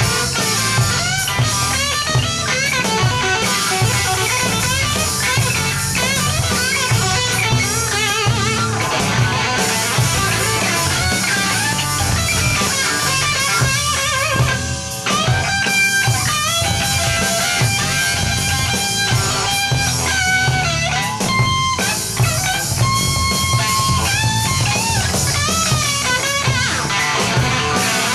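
Live hard-rock band playing: a lead electric guitar solos with bent and sustained notes over drums and bass guitar.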